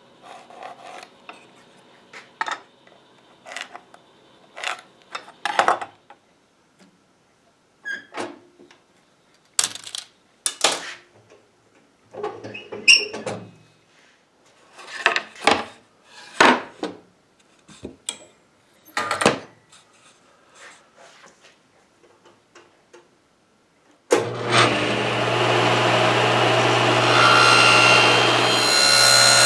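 Scattered knocks and clacks of tools and a sheet of plywood being handled on a table saw's top, with quiet gaps between them. Near the end a Powermatic cabinet table saw is switched on suddenly and runs steadily with a low hum.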